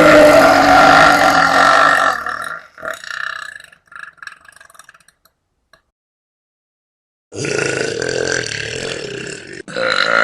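Girls burping: one long, loud burp of about two seconds that trails off into a few short croaks. After a few seconds of silence, two more burps follow back to back near the end.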